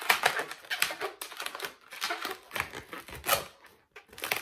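Latex modelling balloon being twisted and handled: latex rubbing on latex and fingers in quick, irregular strokes as two small bubbles are lock-twisted together, with a brief lull near the end.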